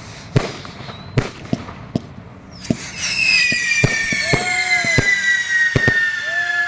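Fireworks going off: a string of sharp bangs and pops, then about three seconds in a loud, long whistle that slowly falls in pitch. Shorter whistles rise and fall beneath it.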